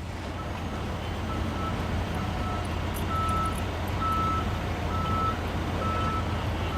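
Reversing alarm of a large utility truck beeping about once a second as the truck backs up to set its hi-rail wheels, over a steady low engine drone.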